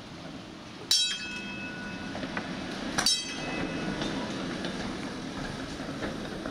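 PCC streetcar rolling past with a steady low rumble that builds gradually. Two sharp metallic clangs, each with a brief ringing tail, come about a second in and about three seconds in.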